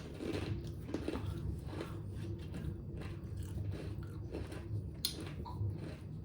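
Close-up chewing and crunching of a crisp fortune cookie, in short irregular crunches, with one sharp crack about five seconds in.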